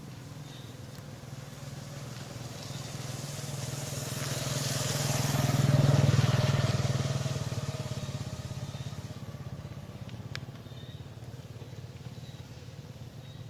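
Motorbike engine passing by: it grows louder to a peak about six seconds in, then fades away.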